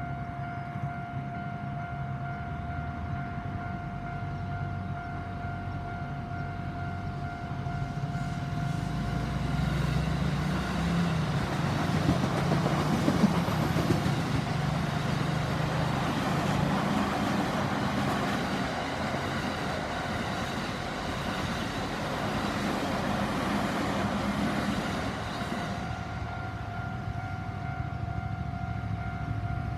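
Japanese railway level-crossing alarm ringing its standard electronic bell tone. From about ten seconds in a train passes and its rumble largely covers the bell for some fifteen seconds; the bell stands out again near the end.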